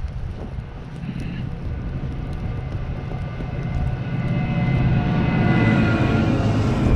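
Snowplow truck engine running and growing louder as it comes close, about four seconds in, with a steady whine over a low rumble. Wind buffets the microphone throughout.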